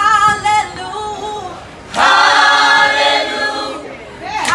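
Choir singing a cappella in harmony, with no instruments: a short phrase, a softer line, then a loud held chord about two seconds in that fades away near the end.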